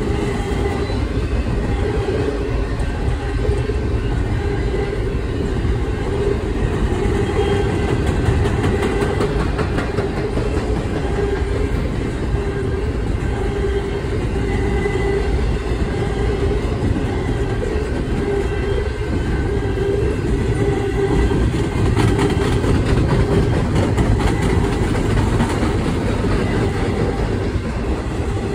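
Loaded double-stack intermodal well cars rolling past: a steady rumble of steel wheels on the rails.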